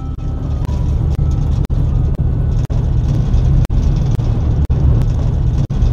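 Low, steady engine rumble of a large ferry moored at the quay, broken by brief dropouts about twice a second.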